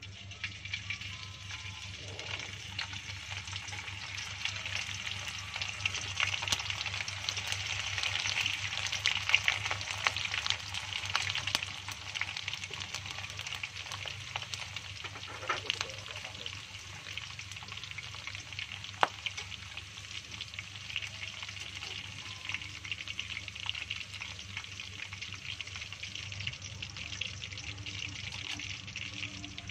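Hot oil sizzling and crackling as pandan-leaf-wrapped bundles of instant noodles deep-fry in a stainless steel pot, with scattered sharp pops. The bubbling is busiest in the first half and eases off toward the end.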